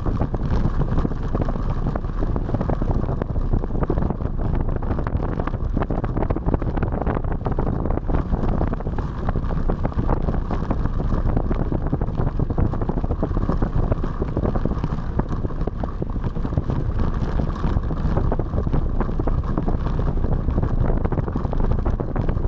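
Small scooter riding steadily under way: its engine runs beneath wind rushing over the microphone.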